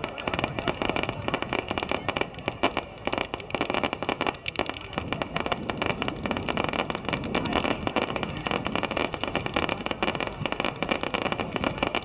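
Fireworks going off in rapid succession: a continuous dense crackle of many sharp pops and bangs, several every second.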